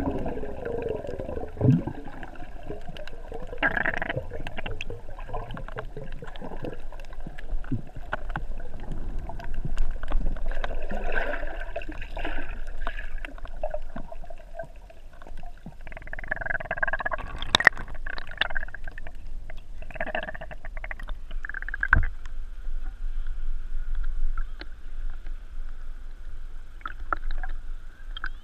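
Muffled water gurgling, bubbling and sloshing heard from underwater as a snorkeler swims, with two sharp knocks in the second half.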